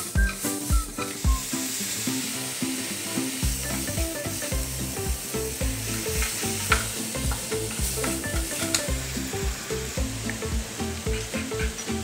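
Zucchini and onion sizzling in hot oil as they are stir-fried in a nonstick pan, with a few sharp ticks of the utensil against the pan. Light background music plays underneath.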